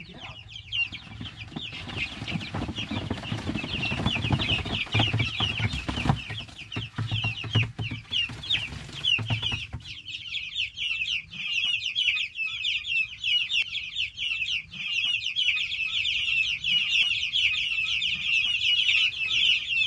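A large flock of young chicks peeping, many short, high, falling chirps overlapping without pause. From about two seconds in until about ten seconds in there is also rustling and knocking as the plastic tote holding them is tipped to dump them out.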